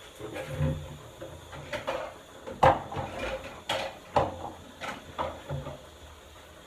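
Kitchenware being handled at a sink: a string of sharp knocks and clatters, about eight in all, the loudest about two and a half seconds in.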